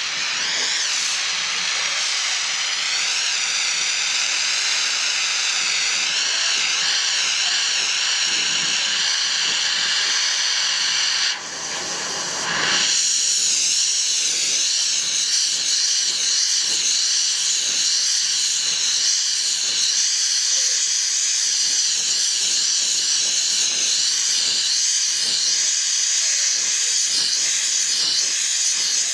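Gas torch flame burning with a steady hiss, heating a hose fitting coated in flux paste for silver soldering. The sound drops briefly about eleven seconds in and comes back a second or so later.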